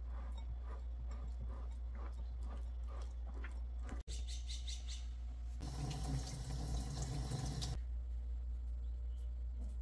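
A kitchen tap runs for about two seconds, starting and stopping sharply, in the second half. Before it come light clicks about three a second, all over a steady low hum.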